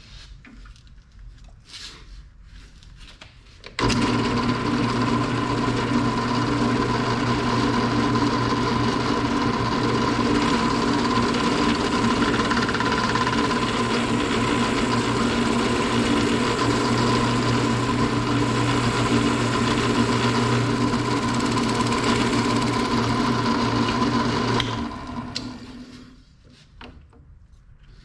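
Drill press motor switched on about four seconds in, running at a steady speed for about twenty seconds, then switched off and spinning down. It is spinning a chucked piece of plastic that is being rounded down into a tapered bushing, using the drill press as a makeshift lathe.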